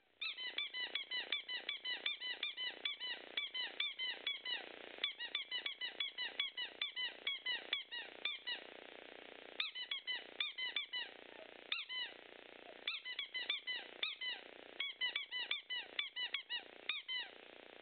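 A squeaky dog toy squeezed rapidly over and over, about four high squeaks a second, in runs with a few short breaks.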